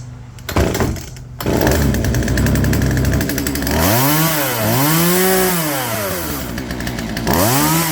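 Two-stroke chainsaw pull-started on half choke. It catches about a second and a half in and runs fast, then is revved up and back down three times.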